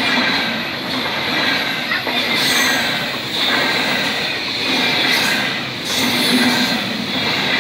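ICE high-speed train passing close by at speed: a loud, continuous rush of wheels on rail and air that rises and falls in waves as the coaches go past.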